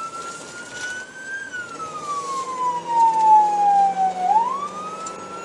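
Police siren wailing, heard from inside the patrol car's cabin: the pitch crests about a second in, falls slowly for about three seconds, then sweeps quickly back up near the end.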